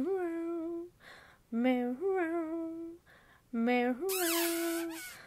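A woman's voice humming a repeated two-note phrase, a short low note sliding up to a longer, slightly wavering higher one, about every two seconds, with breaths between. A hiss comes in about four seconds in during one of the phrases.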